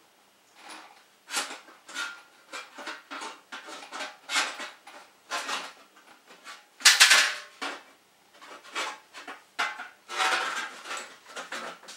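Stovepipe damper rod and plate being fitted into a black steel stovepipe: a string of light metallic clicks, scrapes and rattles against the pipe, with a louder scraping clatter about seven seconds in.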